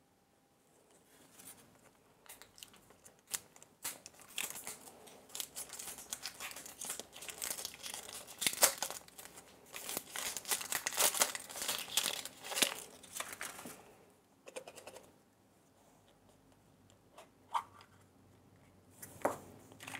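Crinkly wrapping of a toy surprise egg being torn open and handled: a dense run of crackles and rustles that dies away about two thirds of the way through, with a few faint rustles after.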